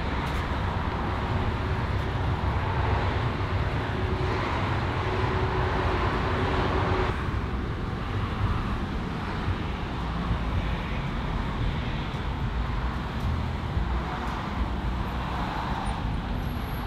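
Steady road traffic: cars passing on a street, with a faint steady hum that stops about seven seconds in.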